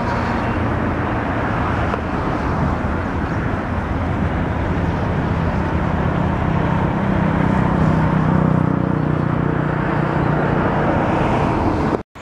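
Steady outdoor rumble of road traffic mixed with the running noise of a passenger train moving away along the track. A low hum grows louder past the middle, and the sound cuts off abruptly near the end.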